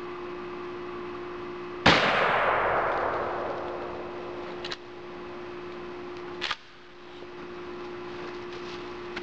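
A single shot from a Remington 870 12-gauge pump shotgun firing 00 buckshot, about two seconds in: a sharp blast whose echo dies away over about two seconds. Two short clicks follow a few seconds later.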